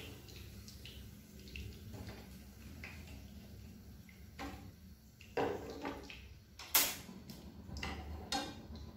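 Chopsticks and a metal spatula knocking against a nonstick frying pan and a plate as fried sweet potato sticks are lifted out, over a faint frying sizzle. Light taps at first, then a handful of sharper clinks in the second half, the loudest about seven seconds in.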